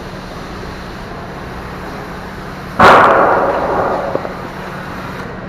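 A single sudden loud bang about three seconds in, dying away over about a second and a half with a faint ringing tail, over a steady background hum.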